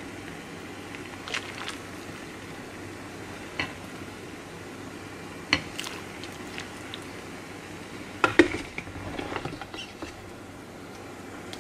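Metal ladle scooping soup from a steel stockpot and pouring it into a ceramic bowl: scattered clinks of the ladle against pot and bowl, the loudest a little past eight seconds in, with light splashing and patter of broth, over a steady background hum.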